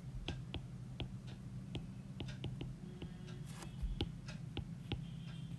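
Irregular light clicks and taps, about two to four a second, over a steady low hum.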